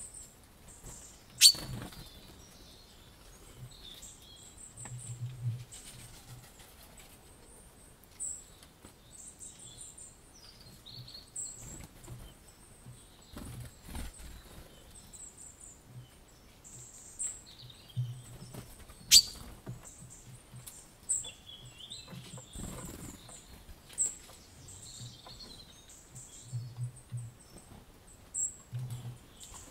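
Small birds chirping in short, high, repeated trills. Two sharp clicks stand out, one about a second and a half in and one about two-thirds of the way through.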